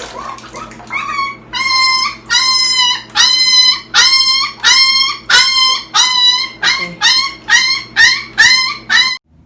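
Puppy howling and crying in distress during a bath: a run of about a dozen loud, high-pitched wails, coming faster towards the end, then stopping suddenly.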